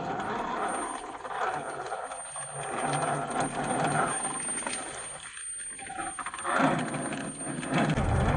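Electric motor and gear train of a radio-controlled Jeep Cherokee model whirring unevenly as it drives over rough ground. The sound swells and fades, growing louder and fuller near the end.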